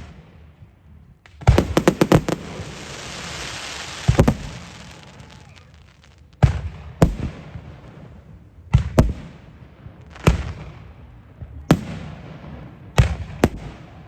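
Fireworks going off: a rapid volley of sharp bangs about a second and a half in, followed by a couple of seconds of hiss. Then single bangs come every second or two, each trailing off in an echo.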